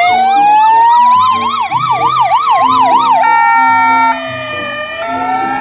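Electronic ambulance siren. A slow rising-and-falling wail carries a fast warble of about two to three sweeps a second, and about three seconds in it switches to a steady multi-tone blare over a slower, quieter glide.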